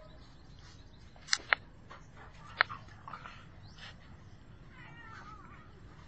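A domestic cat's faint cries as it faces off against a dog. Three sharp clicks in the first three seconds are the loudest sounds.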